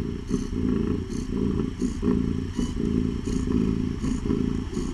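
Domestic cat purring close by, a continuous low rumble that swells and eases with each breath, about one breath cycle every three-quarters of a second. The purr comes from a mother cat with her newborn kittens nursing.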